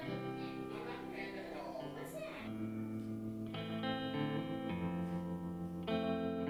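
Background music: held chords that change every second or so.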